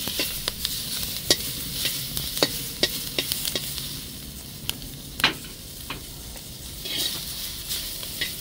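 Sliced onions and sweet peppers sizzling as they fry in a metal pan, with a metal spatula stirring them and scraping and clicking irregularly against the pan.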